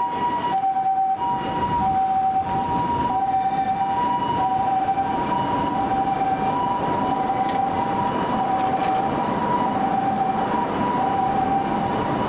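Japanese ambulance two-tone siren, the 'pee-po' call, switching back and forth between a higher and a lower tone at an even pace, with road noise underneath.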